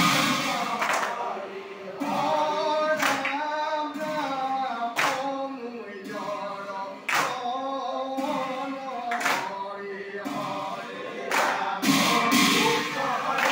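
A group of men singing an Assamese nam-prasanga devotional chant together, with sharp struck beats every one to two seconds.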